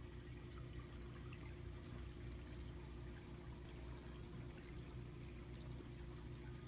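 Faint, steady running water over a low, even hum.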